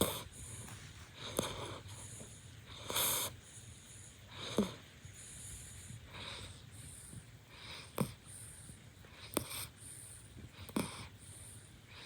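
West Highland white terrier puppy snoring in its sleep, one snore about every second and a half.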